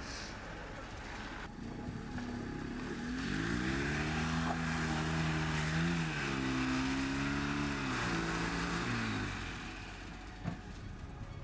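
Small car engine revving up about three seconds in and held at high revs with the pitch wavering, then dropping back near the nine-second mark.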